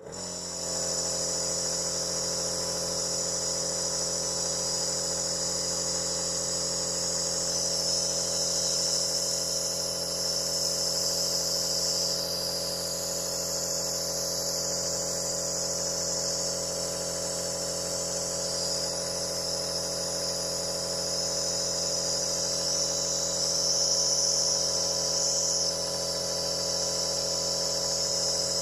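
Medisana IN 500 compressor nebulizer switching on and running steadily: an even motor hum with a hiss of air over it.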